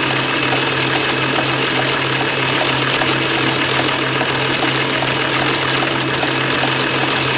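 Steady mechanical drone: a constant low hum under an even hiss, unchanging throughout, with no separate strokes or events.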